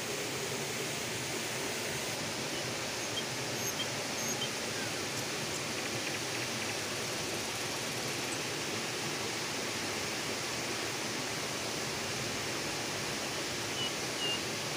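Steady rushing of a small rocky forest river.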